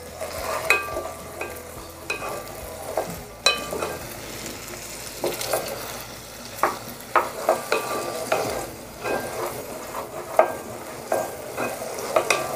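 Garlic sizzling in hot oil in a pot while a wooden spatula stirs it, scraping and knocking against the pot at irregular moments.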